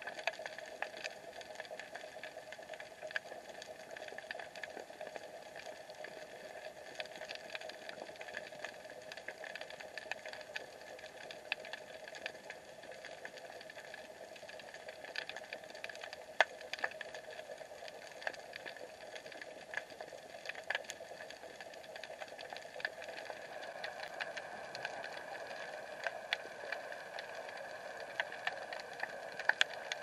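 Underwater sound picked up by an action camera in its waterproof case: a steady muffled hum with two held tones, scattered with many sharp clicks and crackles.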